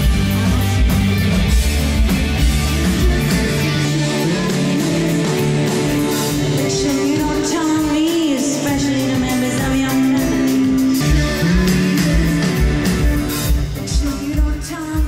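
Live rock band playing loudly: female lead vocal over electric bass, acoustic and electric guitars, keyboard and drums. Part of the passage is recorded on a Canon DM-100 microphone with automatic gain control, which sounds almost mono with squashed dynamics. The rest is recorded on a Shure MV88, which has a wider stereo spread.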